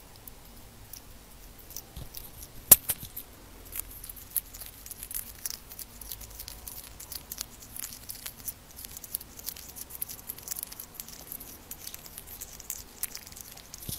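Tenrec crunching and chewing a cricket: a run of small crisp clicks and crackles, with one sharper click a little under three seconds in.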